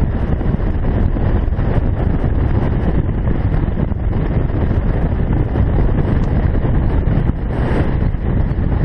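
Wind buffeting the microphone on a Yamaha V Star 650 motorcycle riding along at speed: a steady, loud, low rumbling rush of wind noise, with the bike's running noise buried beneath it.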